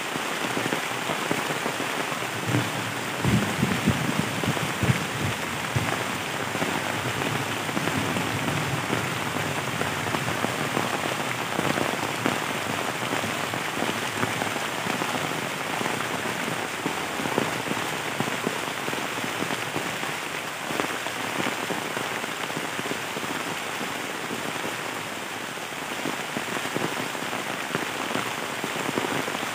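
Steady rain falling on bamboo leaves and leaf litter, an even hiss, with a few low thumps about three to five seconds in.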